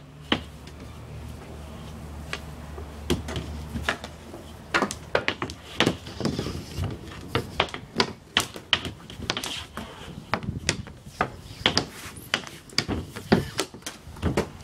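Hockey sticks and ball clacking on a synthetic ice panel: a quick, irregular run of sharp knocks and taps that begins about three seconds in and goes on to the end.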